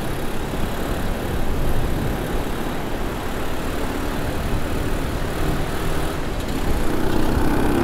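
Four-wheel ATV quad bike running as it is ridden over beach sand, with wind rumbling on the microphone. The engine note grows louder and steadier near the end.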